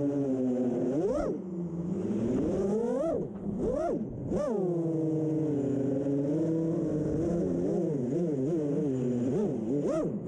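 FPV quadcopter's four brushless motors (Emax ECO 2207 2400kv) spinning 6-inch props: a steady whine that swoops sharply up in pitch and back down with quick throttle punches, several times in the first few seconds and again near the end, wavering up and down in between.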